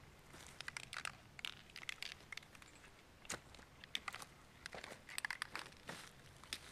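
Footsteps crunching on dry leaves and grass, faint and irregular, with scattered crackles.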